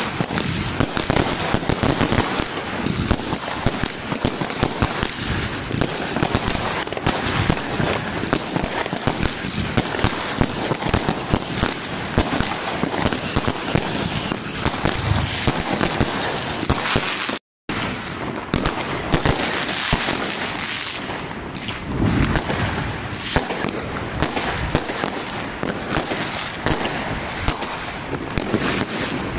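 Fireworks going off without pause: a dense run of bangs, pops and crackling from aerial shells and firecrackers. There is a split-second gap of silence a little past halfway.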